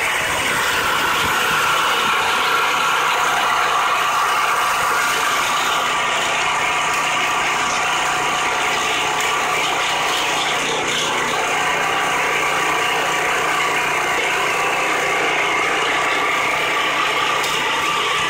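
Small gas engine of a hydraulic log splitter running steadily while the ram drives the wedge down into a log.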